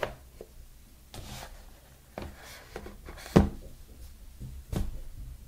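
Cardboard product boxes handled and set down on a table by knit-gloved hands: a few soft knocks and rubs, the loudest knock about three and a half seconds in.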